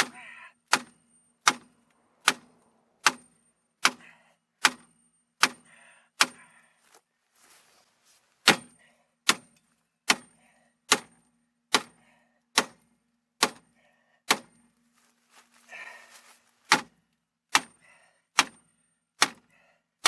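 Hammer striking metal in a steady run of sharp blows, about one every 0.8 seconds, each ringing briefly, with two short pauses.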